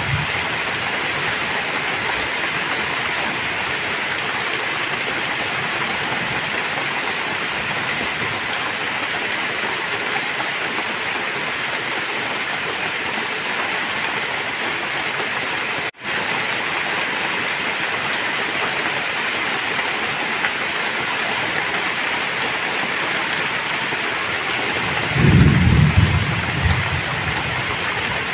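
Heavy, steady rain pouring down, with a deep rumble of thunder swelling briefly near the end. The rain sound cuts out for an instant about halfway through.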